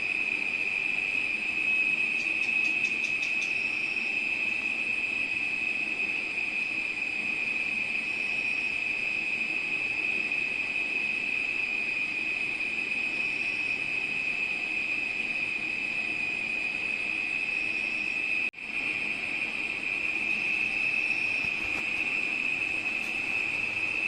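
Steady high-pitched trilling of insects such as crickets, unbroken except for a momentary cut-out about three-quarters of the way through.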